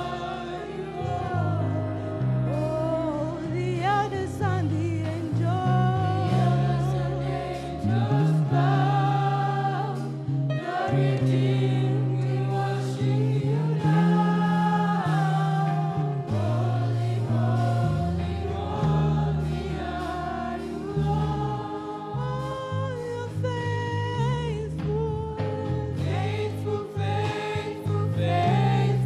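Gospel worship song sung by a group of voices over a steady bass accompaniment.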